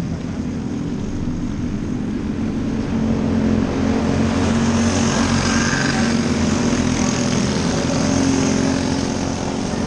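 Engines of several winged micro sprint cars racing at high revs, a steady drone that swells about three seconds in as the pack comes by.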